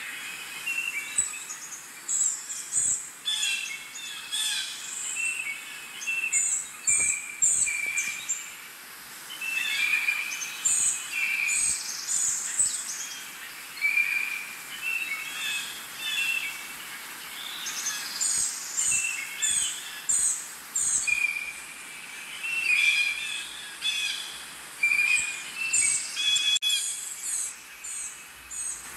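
Birds calling: many short chirps and whistled notes, repeated in quick clusters throughout.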